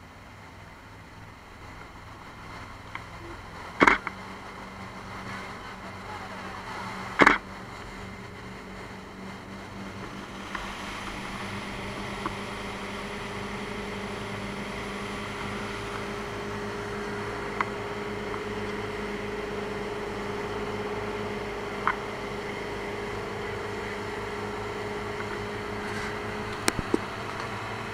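Motorboat engine running under way with wind and water noise, getting louder over the first ten seconds or so as the boat speeds up, then holding steady. Two loud knocks come about four and seven seconds in, with a few lighter clicks later on.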